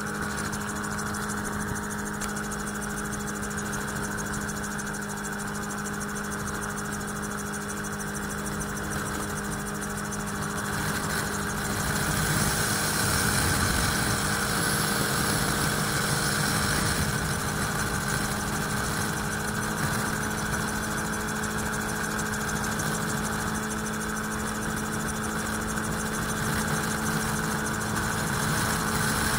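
Magni M16 autogyro in flight: the steady drone of its engine and pusher propeller with rushing air, growing louder about twelve seconds in.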